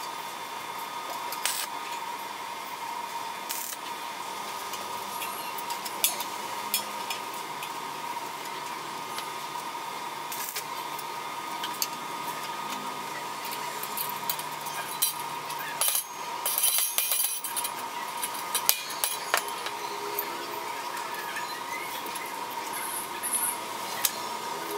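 Steel chain links clinking and rattling against a steel axe head clamped in a vise while the chain is fitted with pliers. Scattered clicks, with a busier run of clinks about two-thirds of the way through, over a steady high-pitched hum.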